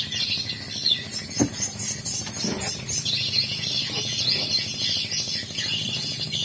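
Background music laid over the footage, with faint outdoor insect or bird sounds beneath it.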